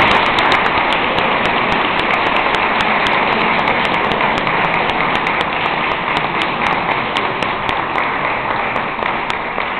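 Audience applauding at the end of a talk: a dense, steady patter of many hands clapping, easing off slightly near the end.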